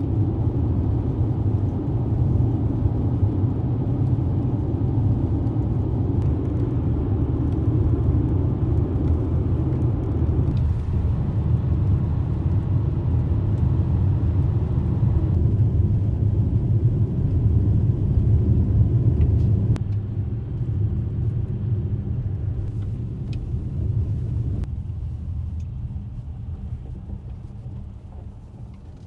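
Road noise inside a moving car's cabin at highway speed: a steady low rumble of tyres and engine that eases off over the last several seconds as the car slows.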